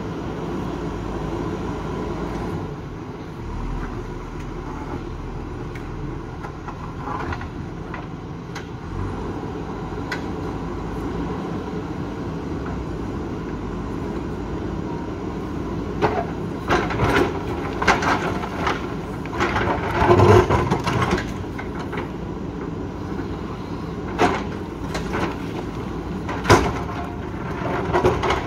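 JCB 3DX backhoe loader's diesel engine running steadily under load. Bursts of clattering knocks start about halfway through, loudest around two-thirds of the way, as the steel bucket scrapes and breaks rock.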